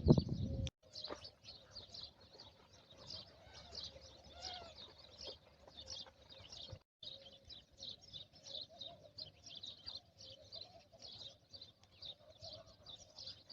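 A chorus of small birds chirping rapidly and continuously, with fainter wavering calls lower underneath. The sound cuts out briefly about seven seconds in.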